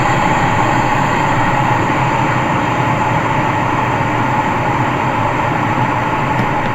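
Philips CoughAssist E70 insufflator-exsufflator's blower running with a steady whoosh of air.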